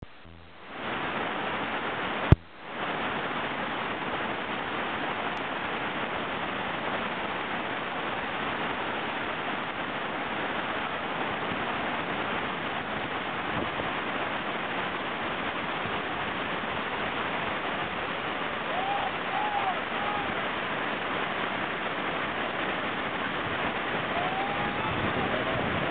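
Whitewater rapid rushing over boulders, a steady roar of water. One sharp click a couple of seconds in, and a few short high calls near the end.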